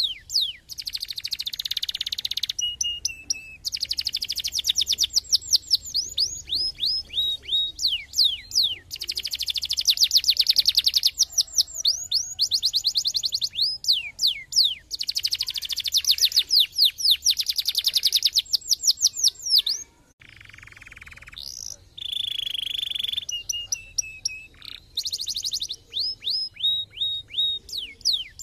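Domestic canary singing a long, loud song of rapid high trills and repeated falling sweeping notes, with a brief break about two-thirds of the way through.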